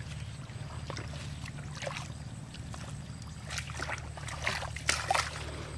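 Small engine running steadily with an even low hum, as of the water pump whose hose drains the pond. A few short, sharp noises come over it between about three and a half and five seconds in.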